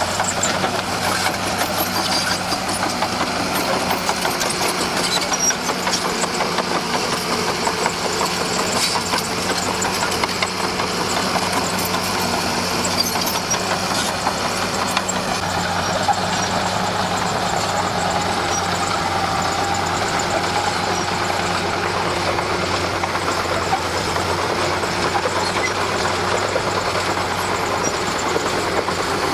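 Komatsu D41P crawler dozer's diesel engine running steadily, with scattered high squeaks and clicks over it.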